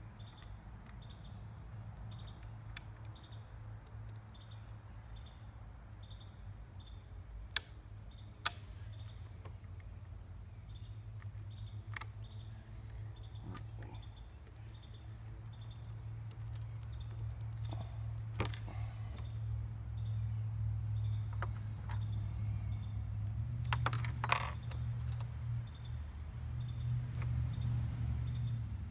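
Insects chirping outdoors: a steady high drone with regular chirps at somewhat under two a second, over a low steady rumble. A few sharp clicks stand out, two of them close together about eight seconds in.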